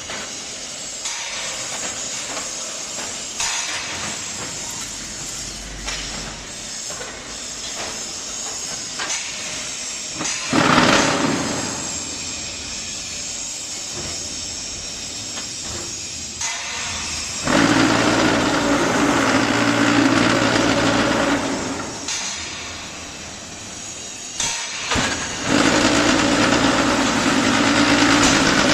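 QTJ4-25D concrete block-making machine running through its cycle, with a short hissing surge about ten seconds in, then two long spells of loud, steady buzzing hum, the second lasting to the end, between quieter mechanical clatter.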